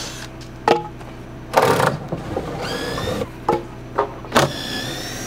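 A cordless drill runs in two short bursts, its whine rising in pitch as it spins up, backing screws out of a wooden frame. Several wooden knocks come between the runs, and the loudest moment is a clatter of boards about a second and a half in.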